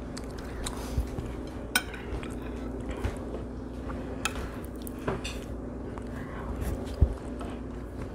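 A metal spoon clinks and scrapes against a ceramic plate as cheesy grits are scooped and eaten, with scattered sharp clicks. A dull knock about seven seconds in is the loudest sound.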